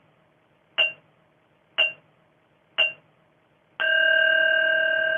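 Timer bell chime: three short bell pings a second apart, then about a second before the end a long ringing bell tone that slowly fades, sounding the start of the countdown.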